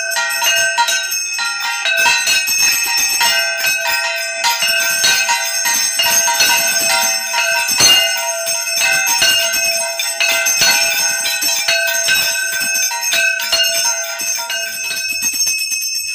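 Brass puja handbell (ghanta) rung rapidly and continuously during the arati. The ringing stops shortly before the end.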